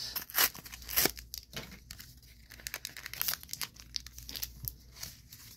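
Foil trading-card booster pack wrappers crinkling and rustling in irregular crackles as the packs are handled and pulled out of their cardboard sleeves, a few sharper crackles standing out.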